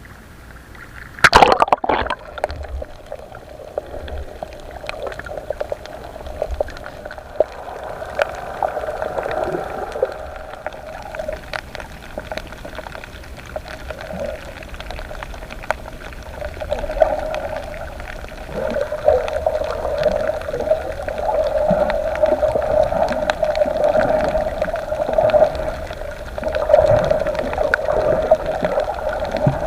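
A splash about a second in, then muffled underwater gurgling and bubbling water noise that grows louder toward the end.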